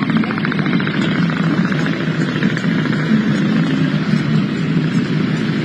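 An engine running steadily, with a fast, even pulsing in the first half.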